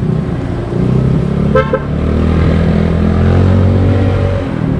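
Yamaha Mio Sporty scooter engine running while riding, its pitch climbing gently from about two seconds in as it speeds up. A short single horn toot sounds about one and a half seconds in.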